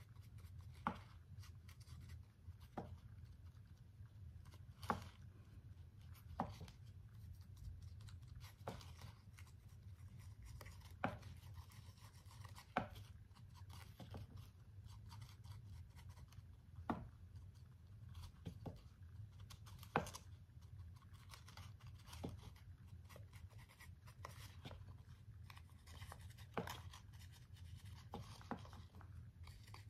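Faint handling sounds of a brush working aging paste onto a papier-mâché hat: light scratching with short taps every second or two, over a low steady hum.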